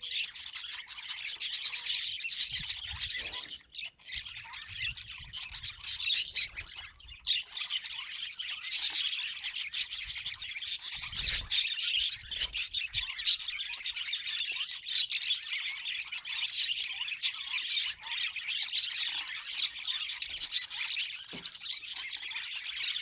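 Budgerigars chattering: a dense, continuous stream of fast chirps, clicks and squawks, broken by a brief lull about four seconds in.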